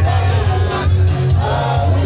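Loud music with a heavy pulsing bass beat that comes in right at the start, a voice singing or rapping over it.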